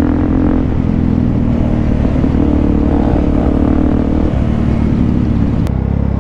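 Suzuki DR-Z400SM's single-cylinder four-stroke engine running steadily at riding speed, its pitch shifting slightly with the throttle, heard from the rider's seat with wind noise.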